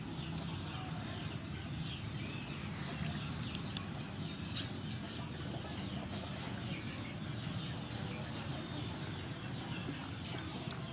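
Garden ambience: many short bird calls over a steady low hum, with a few faint clicks.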